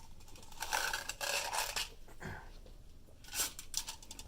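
Screws being driven by hand into a graphics card's metal mounting bracket in a PC case: metallic scraping and clicking in two spells.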